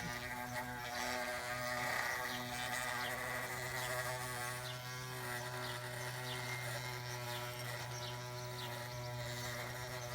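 Electric drive of an RC model construction machine, a steady buzzing whine with a few faint ticks over it.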